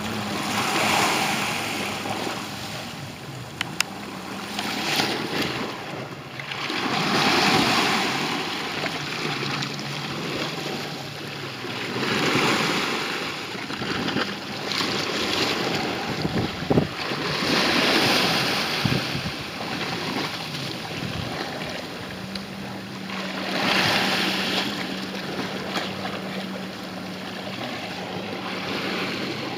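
Small waves washing in and out at the water's edge, swelling every few seconds, with wind on the microphone. Under it, a steady low drone from a jet ski engine out on the water, clearest at the start and in the last third.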